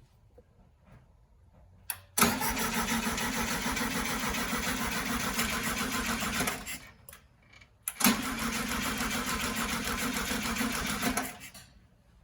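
Air-cooled VW Beetle engine turned over by its starter twice without catching, about four and a half seconds and then about three and a half, each run opening with a click. The cranking is a test of whether the fuel pump delivers fuel to the carburettor, which it is not doing.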